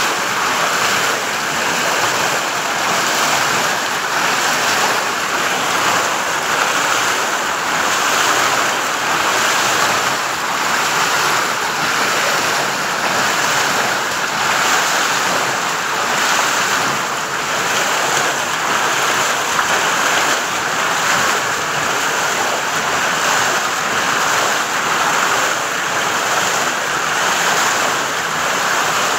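Water pouring and splashing through the buckets of a turning steel waterwheel, a loud, steady rushing.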